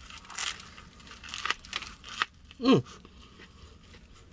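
Crusty bánh mì baguette crunching and tearing as it is bitten off and chewed, in a string of crisp crackles. About two-thirds through comes a short hum falling in pitch.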